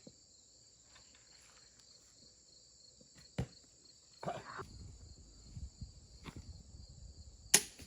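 Steady, high-pitched chorus of insects trilling outdoors. A few faint clicks and knocks sound over it, with a short rustle about four seconds in and a sharp click near the end.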